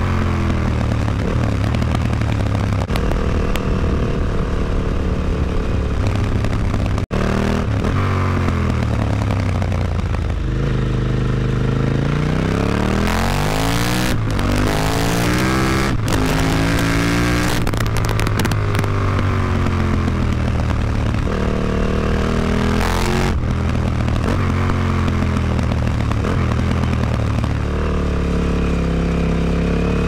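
KTM 950 Adventure's V-twin engine running through an Akrapovic exhaust with the dB killer fitted. The revs rise and drop back over and over, the pitch climbing in long sweeps and then falling.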